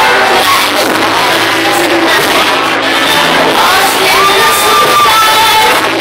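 Waltz music playing loudly over a crowd cheering and whooping.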